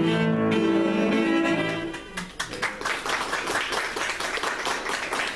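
Cello and piano holding a final chord that ends about two seconds in, followed by an audience applauding.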